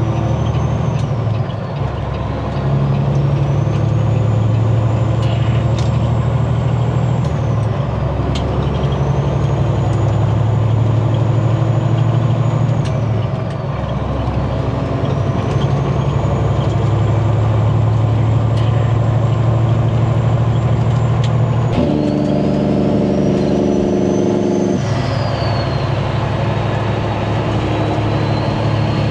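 Diesel semi-truck engine pulling away and running up through the gears. A high turbo whistle rises in each gear and falls away at each shift, about five shifts in all.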